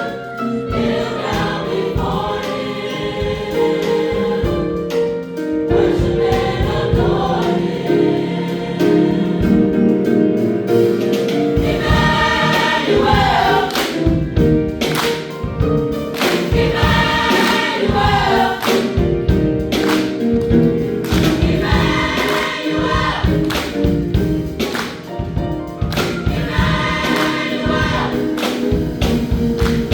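High school choir singing with instrumental accompaniment and a steady beat underneath.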